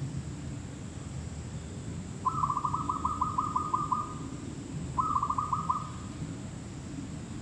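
Zebra dove calling: a quick run of about ten short cooing notes, then after a pause a shorter run of about five.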